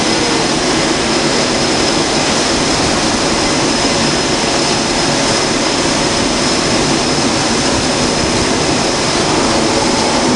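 F/A-18 Hornet-type fighter jet engines running on an aircraft carrier's flight deck: a loud, steady jet noise with a thin high whine, holding level without spooling up or down.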